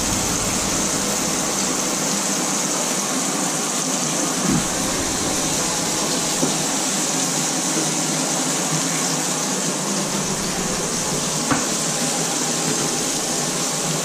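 Beef burger patties sizzling in a frying pan over a gas flame, a steady hiss, with a light knock about four seconds in and a click near the end.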